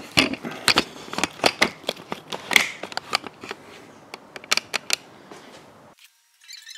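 A run of irregular sharp clicks, taps and knocks: handling noise as the camera is carried over to the car. Near the end it drops out briefly, and a thin, high-pitched patterned sound begins.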